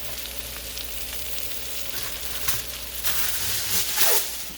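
Blackened salmon fillets sizzling in butter in a frying pan, a steady hiss with louder crackling bursts from about two and a half to four seconds in.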